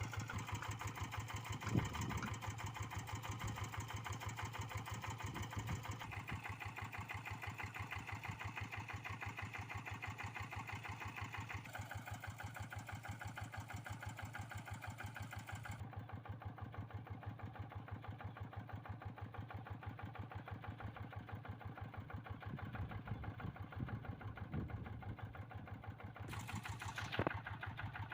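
Kubota RD85DI single-cylinder diesel on a Quick G1000 two-wheel hand tractor, running steadily with a rapid, even chug. A few short knocks come through, one sharper near the end.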